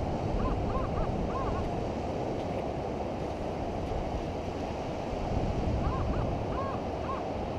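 Steady surf washing at the water's edge, with wind buffeting the microphone. Twice, about half a second in and again around six seconds, a metal detector gives a few short warbling beeps as its coil is swept over a coin target in the dug hole.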